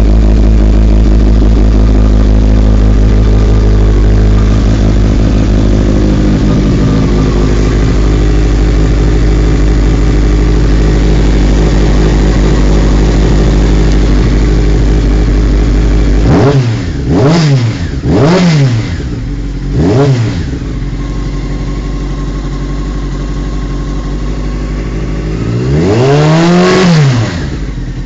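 Honda CBR600F4i's inline-four engine idling steadily, then blipped three times in quick succession and revved once more, a little longer, near the end, its pitch rising and falling with each throttle blip.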